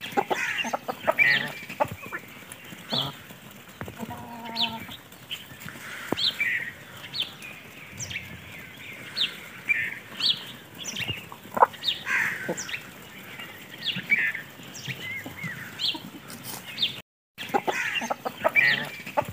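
A flock of hens with a rooster clucking while they feed, many short overlapping calls. There are sharp little clicks among them, and the sound drops out for a moment near the end.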